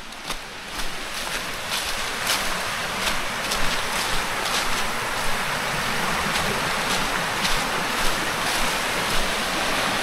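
Stream rushing over rocks, growing louder over the first couple of seconds and then steady, with footsteps crunching through dry fallen leaves about every two-thirds of a second.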